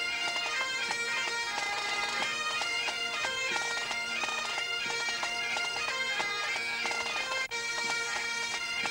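Scottish pipe band playing: Great Highland bagpipes sounding a tune over their steady drones. The sound drops out for an instant about seven and a half seconds in.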